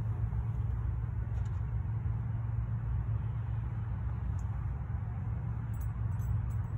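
Steady low outdoor rumble, with a few faint ticks.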